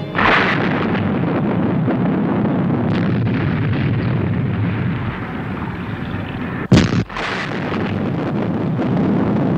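1960s TV sound-effect explosion of a big undersea gun hit by a missile: a blast at the start, then a steady rumbling noise, and a second sharp blast about seven seconds in.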